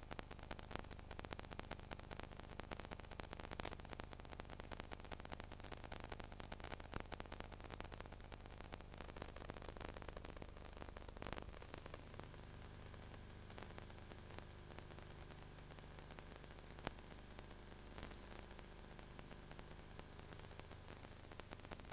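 Faint hiss and crackle of a VHS tape's near-blank soundtrack, with a steady low hum underneath. The crackling is dense at first and thins out about halfway through, leaving mostly hiss and hum.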